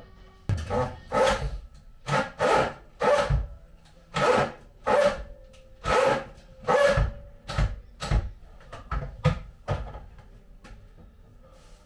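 Cordless drill-driver running in about a dozen short, sharp bursts, driving masonry screws to fix a display unit to the wall.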